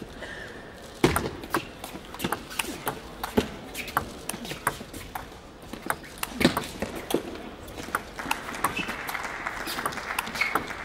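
Table tennis ball struck back and forth in a long rally: sharp clicks of the ball off the bats and bounces on the table, about one every half second to second, from about a second in.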